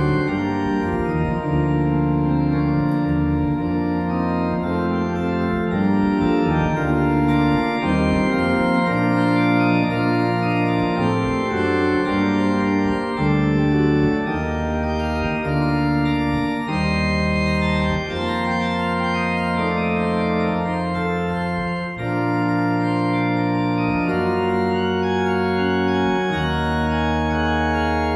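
Church organ playing the postlude: full sustained chords over deep held pedal notes, the harmony changing every second or two.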